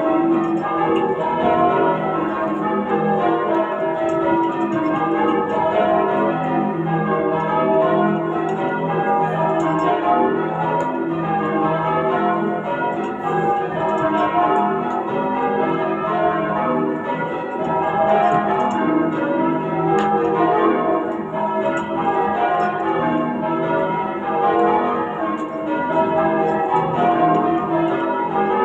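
Change ringing on a ring of eight church bells tuned to E with a 19 cwt tenor, cast between 1739 and 1914 by Thomas Bilbie and Llewellins & James. The bells strike in a steady, unbroken run of overlapping strokes.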